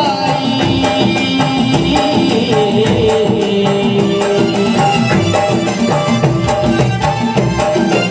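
Live amplified Balochi folk music: an electronic keyboard melody over a steady beat.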